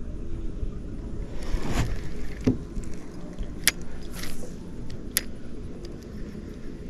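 Handling sounds in a fishing kayak: a steady low rumble with a swish about one and a half seconds in and a few sharp clicks and knocks.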